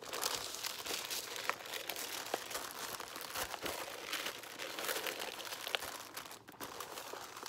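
Cheap store-brand aluminum foil crinkling continuously as hands wrap and press it around a cardboard tube, with many small crackles and a brief lull near the end.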